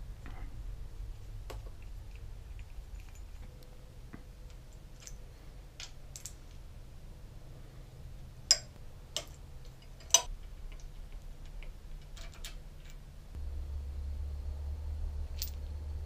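Scattered light clicks and taps of metal parts and hand tools being handled while fitting motorcycle handlebar controls and clamps, with three sharper clicks about 8 to 10 seconds in. A low hum runs underneath and gets louder about 13 seconds in.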